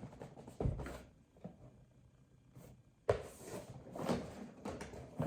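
Handling noise: a single knock about half a second in, then after a quiet pause about two seconds of rustling and knocking, like a boxed cleaning robot being moved and its packaging handled.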